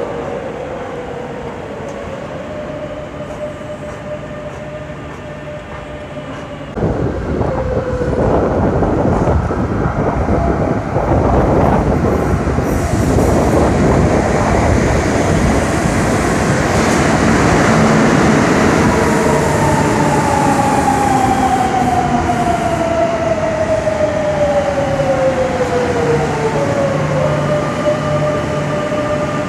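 Madrid Metro Line 10 trains. First a quieter steady whine, then after a sudden jump about seven seconds in, the loud rumble of a train running into the platform. Its motor whine falls steadily in pitch as it brakes, and settles to a steady hum as it comes to a stop near the end.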